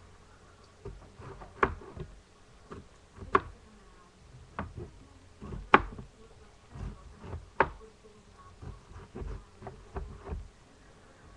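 Irregular knocks and taps of kitchen work, spaced unevenly, with a few sharper clacks among them.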